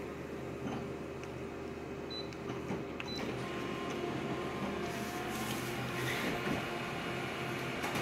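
Konica Minolta office copier running a single-colour red copy job: a steady mechanical hum with a few clicks as it scans the original, then from about three seconds in it prints. The hum grows louder and brighter from about five seconds in as the sheet feeds through to the output tray.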